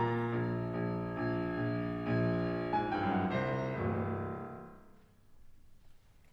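Piano playing the closing chords of a children's choir song, the last chord ringing out and fading away about five seconds in.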